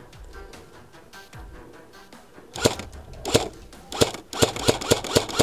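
Airsoft electric rifle (AEG) firing single shots on semi-auto, each a sharp crack: two shots spaced well apart about two and a half seconds in, then a quicker string of about six shots from about four seconds in. Quiet background music sits under the first half.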